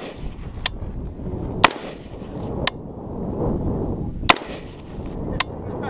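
Rifle shots on a range: five sharp cracks, the two loudest about a second and a half in and just past four seconds, with fainter ones in between.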